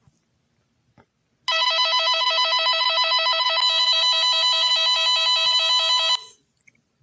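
Emergency alert (EAS-style) alarm tone: a loud chord of several high pitches with a fast flutter, starting abruptly about a second and a half in and cutting off about six seconds in.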